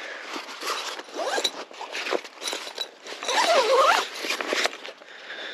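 A run of short rasping scrapes in quick succession, with a longer, louder one in the middle.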